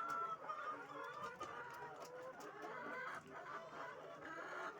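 A flock of laying hens clucking, many short calls overlapping without pause.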